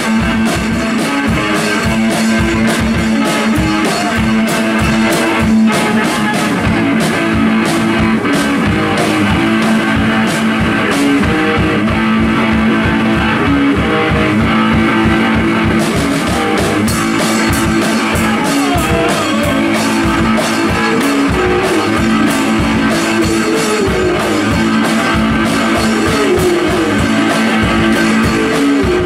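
Live two-piece rock band playing: electric guitar over a drum kit hit hard and fast. The cymbal wash drops out for a few seconds midway, then comes back.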